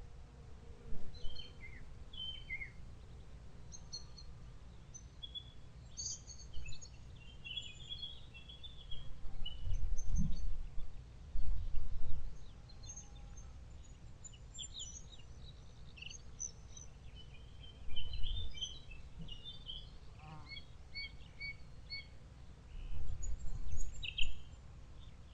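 Songbirds chirping and singing in short, scattered phrases. Several low rumbles, louder than the birds, come about ten and twelve seconds in, again near eighteen seconds, and near the end.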